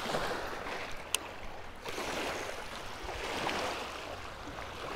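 Small waves lapping and washing against a rocky lakeshore, an even splashing wash, with a single sharp click about a second in.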